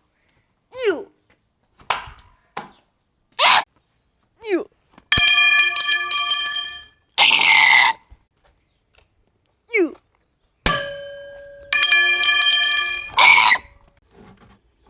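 Loud creature calls for a Triceratops puppet: a series of short squeals that fall in pitch, two long held buzzy notes, and one harsh screech, with dead silence between them.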